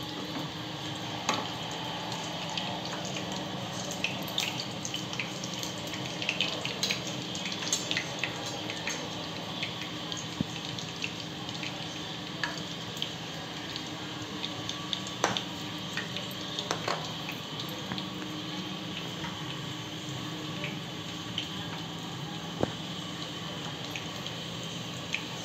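Vegetable ghee (Dalda) heating and melting in a non-stick kadai over a gas flame, with a steady low sizzle and scattered small crackles. The fat is still warming up, not yet hot enough for the semolina to go in.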